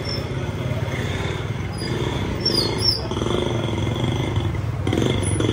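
Low, steady rumble of an engine running close by, pulsing rapidly and evenly, with a few faint high chirps a little past halfway.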